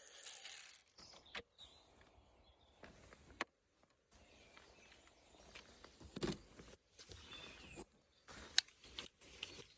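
A loud, steady noise cuts off about a second in. It is followed by scattered light clicks and knocks of hand tools and plastic parts being handled while the air filter box and its intake pipe are taken apart.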